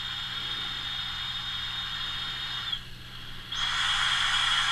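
Argon backing gas hissing out of the small holes of an aluminium weld purge box, with a steady high whistle over the hiss. About three seconds in the flow briefly drops away, then comes back louder as the gas is turned up high.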